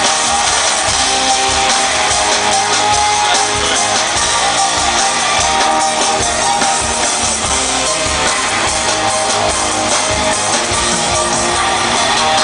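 Music with guitar, played continuously at a steady loudness.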